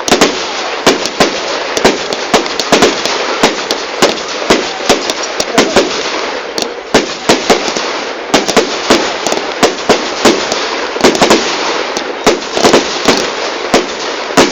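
Fireworks going off in quick succession: many sharp bangs, several a second, over continuous crackling.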